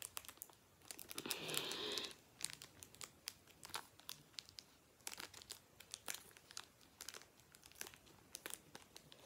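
Foil booster-pack wrapper crinkling and tearing as a Pokémon card pack is worked open by hand, with many small crackles and a louder stretch of crinkling a little over a second in.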